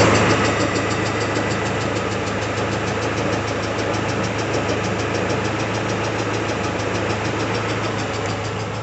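Peugeot 406 engine idling with a fast, even valvetrain ticking over its steady hum. The owner puts the tick down to the hydraulic valve lifters (lash adjusters) on a warming engine.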